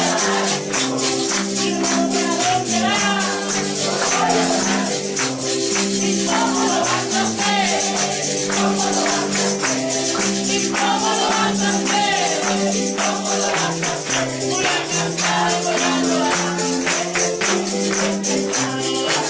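Church congregation singing a Christian worship song together over sustained chords, with a tambourine shaken and struck in a steady rhythm.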